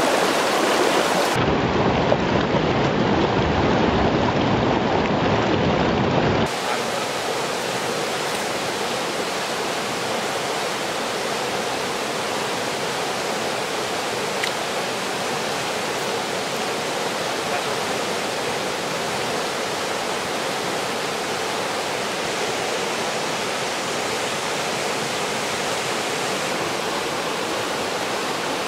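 Fast water of a rocky trout stream rushing over stones in a steady, even roar of noise. It is louder and deeper for the first several seconds, then drops to a slightly quieter, thinner rush.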